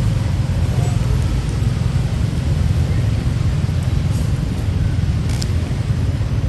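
Steady low rumble, with a faint click about five seconds in.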